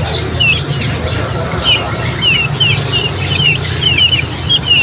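A songbird giving short, falling chirps again and again, often two or three in quick succession, over a steady low hum.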